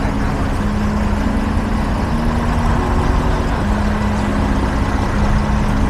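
Steady din of engines and traffic, with a slow line of held music notes stepping between a few pitches over it.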